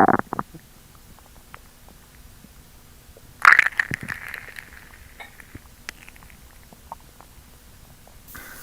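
Stomach growling: a short, loud gurgle at the start, then a longer gurgle about three and a half seconds in that fades out over a second or so, with faint small squelches in between.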